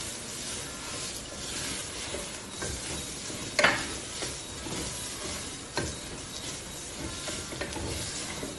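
Onion and spice masala sizzling in an open pressure cooker on a gas flame while a wooden spatula stirs it. The spatula scrapes sharply against the pot about three and a half seconds in and again near six seconds.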